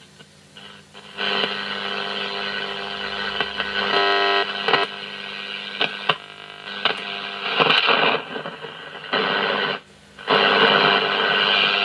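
Static and hiss from an old Philips multiband radio's loudspeaker, rising in about a second in, with brief whistling tones and a few clicks, cutting out briefly twice as the band buttons and knob are worked. The set is on but doesn't pull in a station: its dial cord is thought to be broken.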